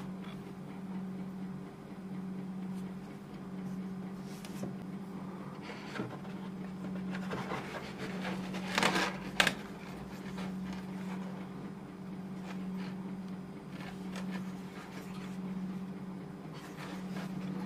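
Hands handling a gaming headset and its cardboard box packaging: light rustles, then a louder stretch of rustling with two sharp clicks about nine seconds in. Under it runs a steady low hum that swells and fades slowly.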